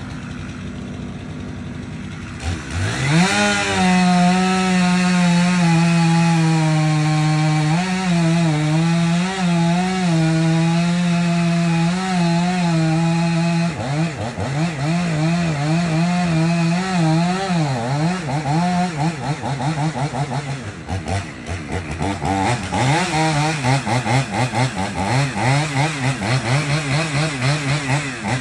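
A two-stroke chainsaw revs up and runs at high, steady full throttle. About halfway through, its note starts wavering and dipping again and again as the chain bogs under load in the wood.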